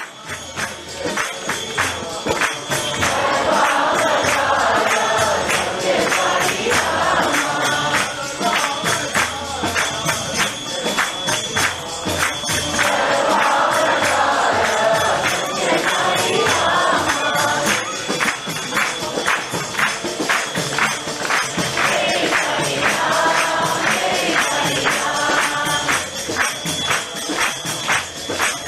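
Hindu devotional bhajan music: a group of voices singing in recurring phrases over a steady, fast percussion beat.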